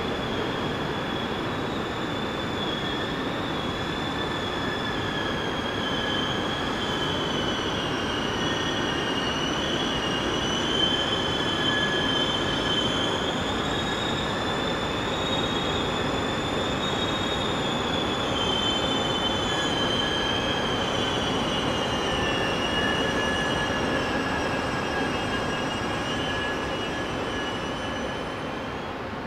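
A train's wheels squealing as it pulls slowly into the station: a long, wavering high squeal with several overtones over a low running rumble. It fades near the end.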